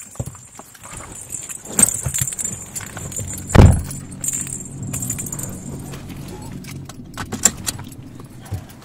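Car keys jangling and a car door being slammed shut with one heavy thump, followed by small clicks and rattles inside the car.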